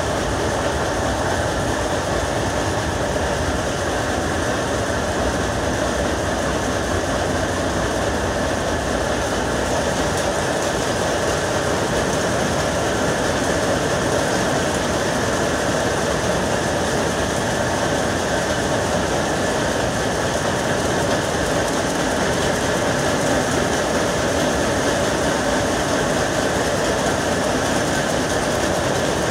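Power looms weaving saree fabric, a steady, dense mechanical clatter.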